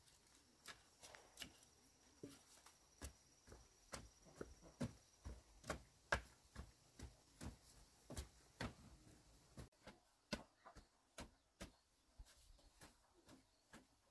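Faint, sharp taps and knocks, two or three a second at an uneven pace.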